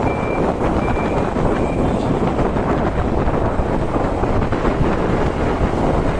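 Wind buffeting the camera microphone on a moving bicycle: a loud, steady rushing noise. Three short, high beeps sound about half a second apart in the first two seconds.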